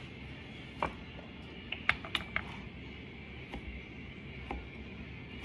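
A knife slicing a block of tempe on a plastic cutting board, the blade tapping the board in a few light, scattered clicks, three of them close together about two seconds in, over a steady background hiss.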